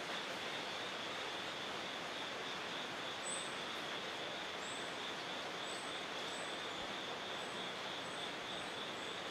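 A steady hiss of background noise with a constant high buzz in it. From about three seconds in, a small songbird gives a series of very short, very high, thin call notes, about eight of them.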